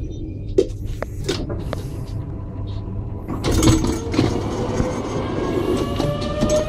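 Stadler FLIRT Type 74 electric train: a few knocks, then from about halfway a rising whine from the traction motors as the train pulls away and picks up speed.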